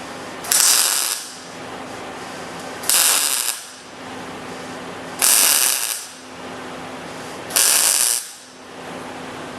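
MIG welder laying short tack welds on sheet-metal body panel: four even bursts of crackling arc, each well under a second, about two seconds apart, over a steady background hum.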